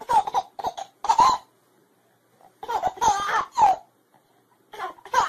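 A baby laughing in three bursts with short pauses between.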